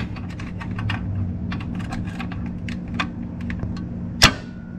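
Paper-clip wire clicking and scraping against the starter pinion and flexplate teeth as it is worked into the gap to gauge pinion-to-flexplate clearance. One sharper metallic click rings briefly about four seconds in, over a steady low hum.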